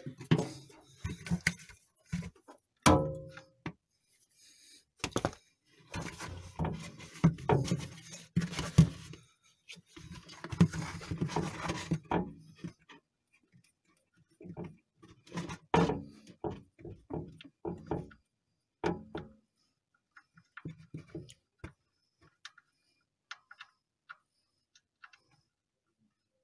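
Socket ratchet and wrench clicking and knocking against metal while the oil drain plug is loosened under a car: busy, irregular clicks and knocks for the first twelve seconds or so, then only scattered faint ticks.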